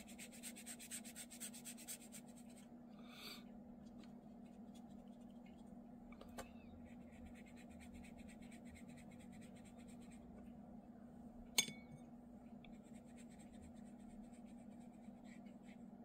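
Faint scratching of a paintbrush stroking watercolour paint onto paper, over a steady low hum, with one sharp click about two-thirds of the way through.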